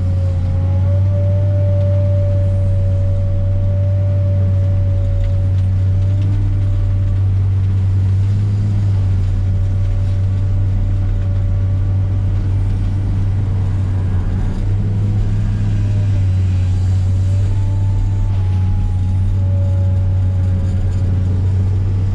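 Komatsu PC300 excavator's diesel engine running steadily under working load, with a hydraulic whine that wavers up and down in pitch as the machine works.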